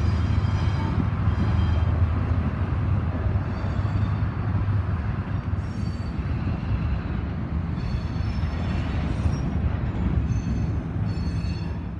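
Diesel switcher locomotive running steadily as it pulls a string of covered hopper cars: a low engine drone over the rumble of the rolling cars, with a few faint high squeals from the wheels now and then.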